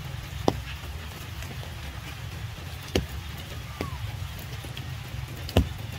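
Rain falling, with a steady low rumble underneath and four sharp, single drops landing close by, the loudest near the end.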